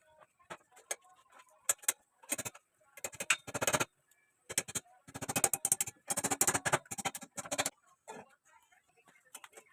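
Irregular clicks, taps and short scraping noises, as of objects being handled, thickest in the middle of the stretch.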